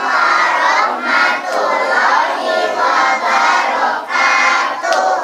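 A crowd of young children's voices chanting loudly together in short phrases, cutting off suddenly near the end.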